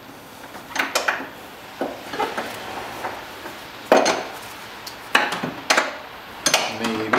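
Metal wrench clinking and knocking against the snowmobile's engine mount nuts and frame: irregular metallic clinks, the loudest about four seconds in.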